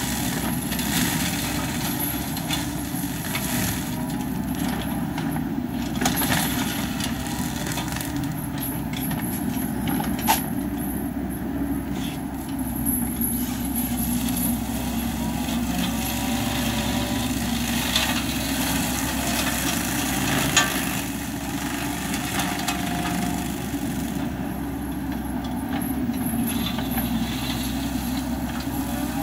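Wacker Neuson ET65 mini excavator's diesel engine running steadily under load while its forestry mulcher head spins and shreds brush and grass, with a couple of sharp knocks about a third and two thirds of the way through.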